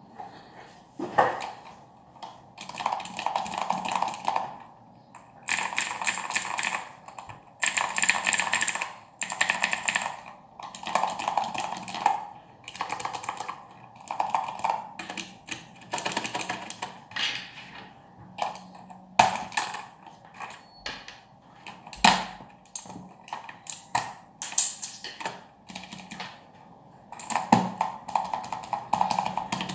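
Mechanical keyboard with clicky Cherry MX Blue switches being typed on in fast runs of a second or two, separated by short pauses. A few single key strikes stand out louder than the rest.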